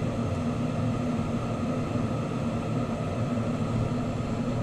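Steady roar of a Bethlehem Bravo lampworking bench torch's flame, under a constant low hum.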